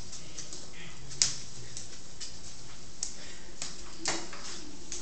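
A crawling baby's hands patting a tile floor: a few scattered sharp pats, the loudest about a second in, over steady background noise.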